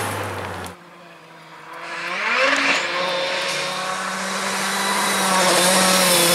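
A rally car's engine running loud, cut off abruptly under a second in. Then a Hyundai i20 rally car approaches, its engine revving up about two seconds in and then held at high revs, growing louder as it comes closer.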